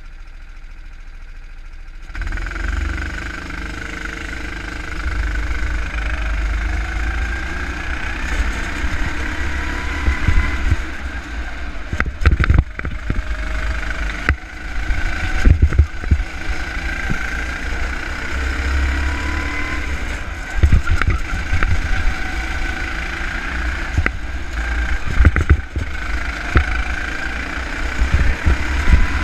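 Go-kart engine heard from the kart itself, revving up and falling back again and again as the kart takes the corners, with several sharp thumps along the way. It is quieter for the first two seconds, then picks up as the kart pulls away.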